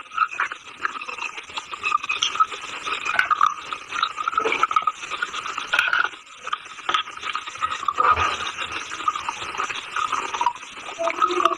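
Close-up chewing of a brittle chalky material: teeth crunching and grinding it in a dense, continuous run of small crackles, with a brief break about six seconds in.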